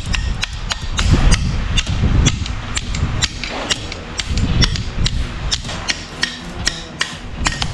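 Hand tools knocking and clinking on metal motorcycle parts during a strip-down: irregular sharp taps, a few a second, some with a short metallic ring, over a steady low rumble.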